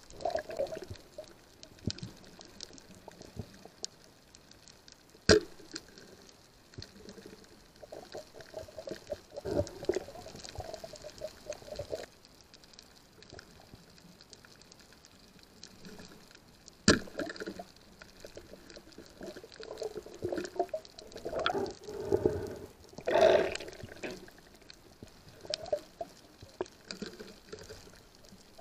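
Underwater water sounds picked up through a dive camera's housing: swishing and bubbling in irregular bursts, with two sharp knocks, one about five seconds in and one a little past halfway.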